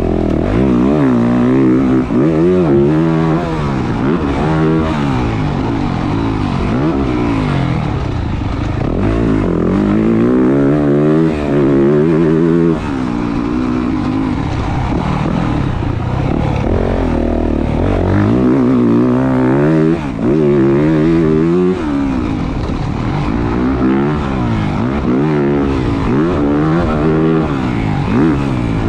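2023 Yamaha YZ450F's 450cc single-cylinder four-stroke engine ridden hard, its pitch climbing and falling over and over as the throttle opens and closes through the gears. Now and then the power cuts off sharply for a moment.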